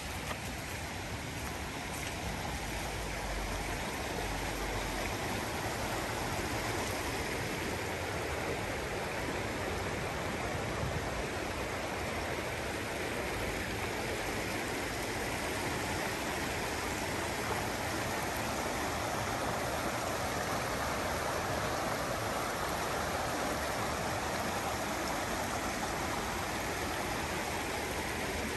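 Steady rush of running water, growing slightly louder over the stretch.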